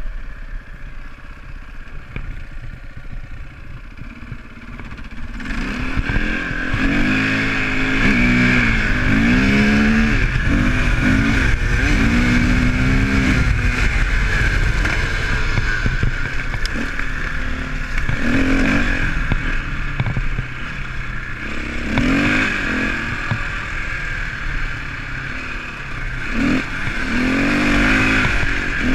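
KTM enduro motorcycle engine under way on a gravel trail, running fairly low for about five seconds, then revved hard. The pitch rises and falls repeatedly as the throttle is opened and shut, with a few short drops in between.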